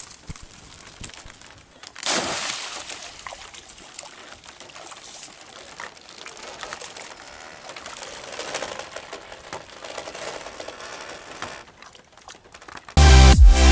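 Water splashing and trickling around a fishing net, with small fish thrashing at the surface. There is a sudden louder splash about two seconds in. Loud electronic music cuts in near the end.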